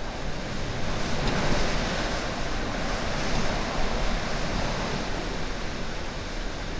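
Typhoon-force wind gusting through park trees, heard through a window: a steady loud rush that swells in a gust about a second in and eases off.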